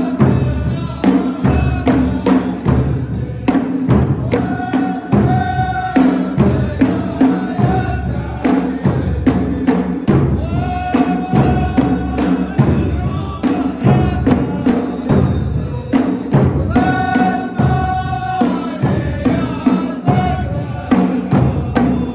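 A folk troupe's group of voices chanting a sung line together over frame drums beating a steady, driving rhythm.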